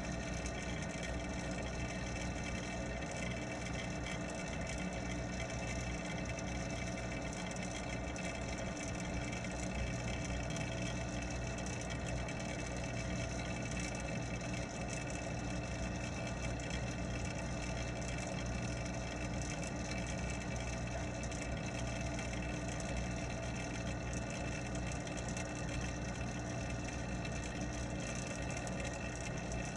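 Pond water pump running with a steady hum of constant pitch, heard underwater.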